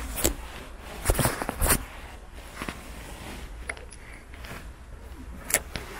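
Handling noise of a float rod and spinning reel: a few short sharp clicks and rustles, the loudest pair just over a second in and another near the end.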